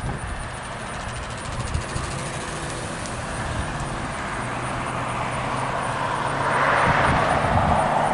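Cars passing on the road, their tyre and engine noise swelling to a peak near the end, over a steady low hum.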